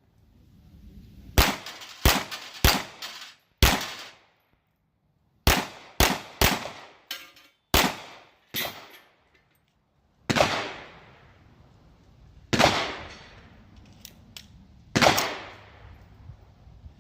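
Gen 4 Glock 17 9mm pistol firing about a dozen shots, a quick string of them at first and then slower, single aimed shots a second or two apart.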